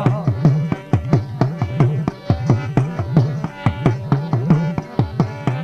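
Dakla drum beating a quick, even rhythm, about four strokes a second, over held instrumental tones: the interlude of a Gujarati devotional folk song to the goddess, the singer's voice trailing off just as it begins.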